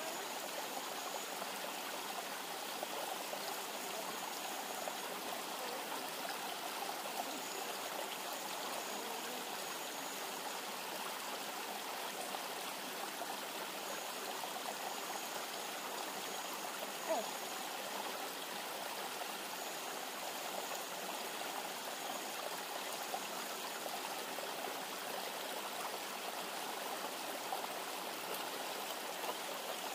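A river flowing steadily: an even rush of water. A faint high-pitched buzz comes and goes every few seconds, and there is one short click a little past halfway.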